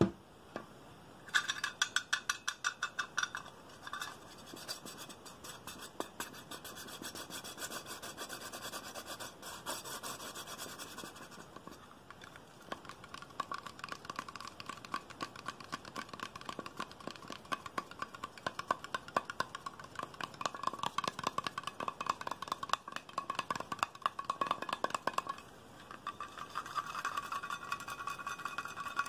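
Rapid fingernail tapping and scratching on small handheld containers, a cylindrical printed tin and a round black lid, making a fast stream of clicks and scratchy strokes. There is a brief lull near the end.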